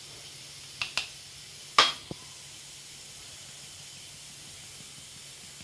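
A plastic kitchen sieve handled and tapped while sifting powdered milk into a mixing bowl: a few short light clicks in the first two seconds, the sharpest a little under two seconds in, over a steady hiss.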